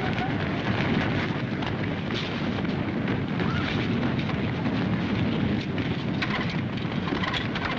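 Steady din of a crowd brawl: many men shouting over scuffling and repeated thuds.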